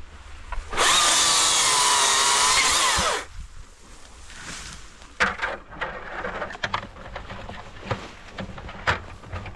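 Husqvarna 542i XP battery chainsaw run at full speed for about two seconds, a high whine over chain noise that drops in pitch and cuts off suddenly. After it, branches rustle and a few sharp cracks sound.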